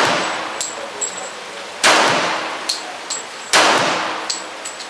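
Glock 21 .45 ACP pistol firing 230-grain full metal jacket rounds: two slow, deliberate shots about 1.7 s apart, each with a long echoing tail. Small high-pitched pings and clinks between the shots, likely spent brass casings landing.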